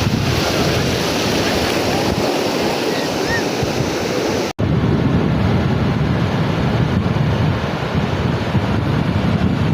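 Sea surf washing on a beach, with wind buffeting the microphone. The sound cuts out for an instant about halfway through, and afterwards it is a little duller.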